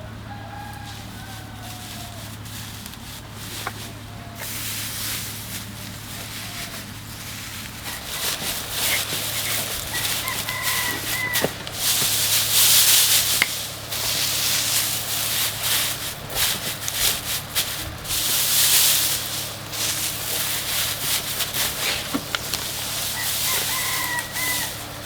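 A rooster crowing, once about ten seconds in and again near the end, over irregular rustling and scraping noises that are loudest around the middle. A steady low hum runs underneath.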